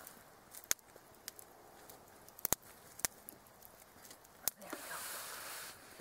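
Small wood campfire crackling: a few sharp, separate pops a second or more apart. Near the end a rustling rush comes in.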